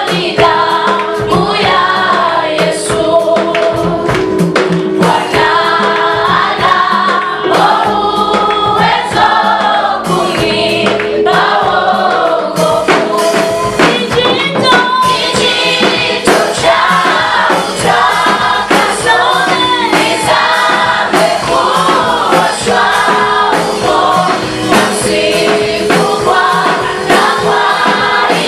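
Gospel choir singing in harmony, a continuous song with held chords.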